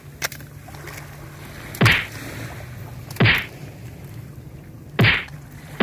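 About four quick whooshing swishes, each sweeping down in pitch, as toy cars are tossed one after another through the air. A brief click comes just after the start.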